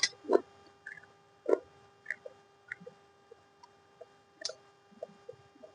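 Irregular small clicks and soft taps, a few a second, the loudest near the start and about a second and a half in, over a faint steady hum.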